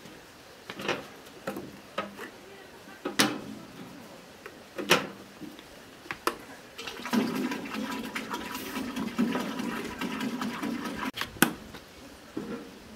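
Several sharp knocks of cookware, then liquid poured out for about four seconds, ending with one more knock.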